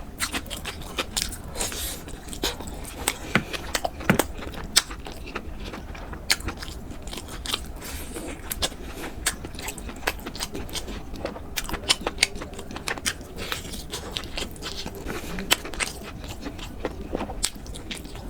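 Close-miked eating sounds: a person chewing and biting a meal of khichdi and chicken curry, with many irregular sharp clicks and smacks of the mouth.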